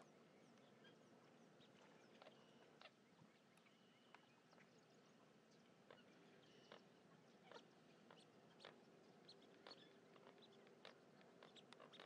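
Faint outdoor wetland ambience with many scattered short bird chips and ticks, and a faint steady low hum from about halfway in.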